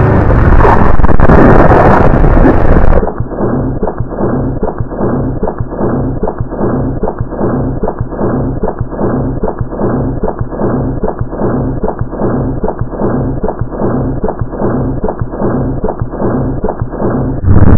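Heavily effects-processed logo soundtrack. It is loud and distorted for about three seconds, then abruptly turns muffled and pulses evenly about twice a second until it snaps back near the end.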